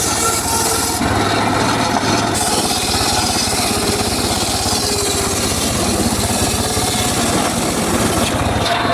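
Homemade circular saw rig cutting teak wood: a steady, loud mechanical run of blade and drive motor, with the high hiss of the cut thinning about a second in and filling back in near the end.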